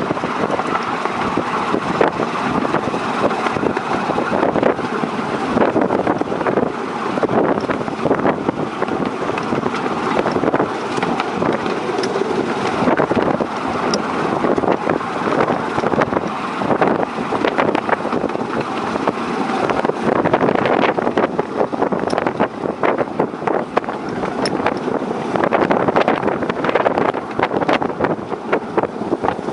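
Miniature railway train running along its track: a continuous clattering rattle of small wheels on the rails, with wind buffeting the microphone.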